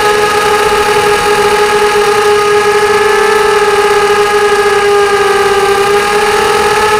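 QAV250 quadcopter's brushless motors and propellers whining steadily in flight, heard close up from its onboard camera, the pitch wavering slightly with throttle.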